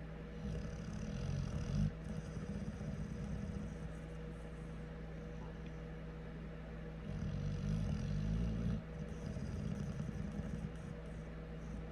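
Pit bull snoring in deep sleep: two low, rattling snores about six seconds apart, each followed by a softer, shorter rattle.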